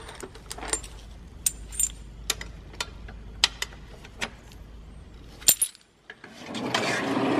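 Loose steel weld-on tabs and brackets clinking against each other and the metal drawer as a gloved hand sorts through a toolbox drawer: a dozen or so sharp, separate metallic clicks. Near the end a longer sliding noise rises as the drawer is moved on its runners.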